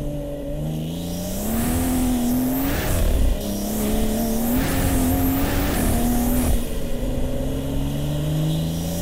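Stage 3 big-turbo BMW M240i's turbocharged straight-six accelerating hard. Its pitch climbs, drops back and climbs again three times, with short bursts of whooshing induction noise.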